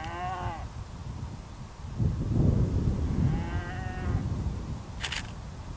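Cattle mooing twice: one call ending just at the start and another long call about three seconds in, over low wind rumble on the microphone. There is a short sharp rustle near the end.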